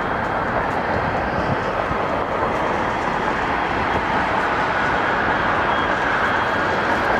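Boeing 767 jet engines at takeoff power, a steady rushing noise with a faint whine that rises slightly in the second half.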